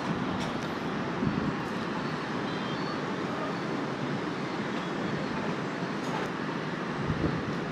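Steady hum of city street traffic, motorbikes and cars heard from above.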